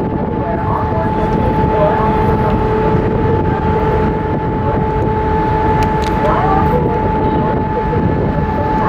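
Steady low rumble of a ferry's engines and machinery, with two constant whining tones held throughout.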